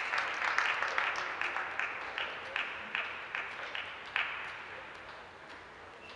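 Spectators applauding at the end of a table tennis rally, the clapping thinning to a few separate, evenly spaced claps and fading out after about four seconds.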